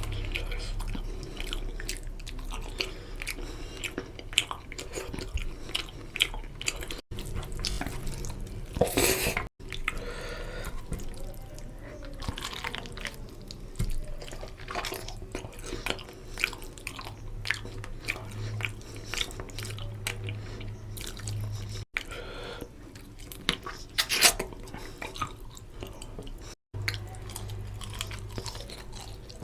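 Chewing and wet mouth sounds of someone eating rohu fish curry with rice, with many small clicks and smacks. The sound cuts out for an instant four times.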